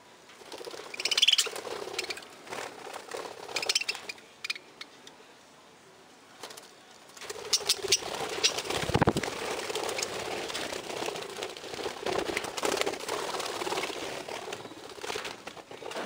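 Budgerigars chirping and chattering. Short sharp chirps come about a second in and again near four seconds. From about seven seconds a denser warbling chatter carries on, with a burst of wing-flapping near nine seconds as a bird takes off.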